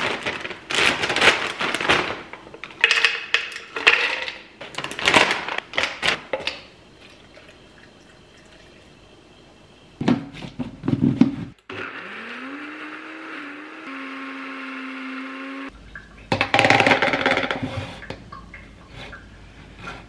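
Electric blender motor running for about four seconds, blending a smoothie of berries, frozen banana and milk. Its pitch rises as it spins up, then holds steady, and it cuts off abruptly. Loud unidentified bursts of sound come before and after.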